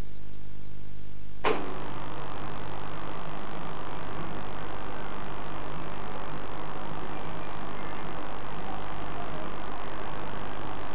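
Steady electrical mains hum with hiss on the soundtrack of an old analogue video recording, broken once by a sharp click about one and a half seconds in.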